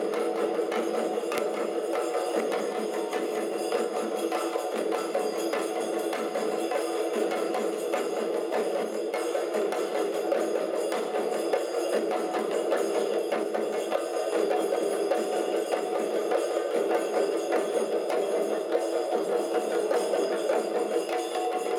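Chenda melam: a group of Kerala chenda drums beaten with sticks in a dense, unbroken stream of strokes at a steady loudness.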